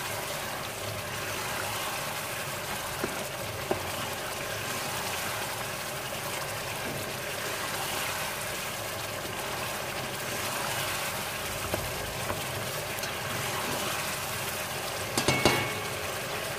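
Green masala bubbling and sizzling steadily in oil in a pot at the bhuna stage, as the paste thickens and the oil separates out. A few faint clicks, and a short knock near the end.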